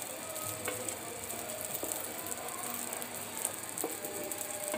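Wooden spatula scraping the bottom of a pan as it stirs a thick chhena-and-jaggery sandesh mixture, a rough scraping with a few light clicks. The mixture is being kept moving constantly so it does not stick to the bottom while it cooks down and thickens.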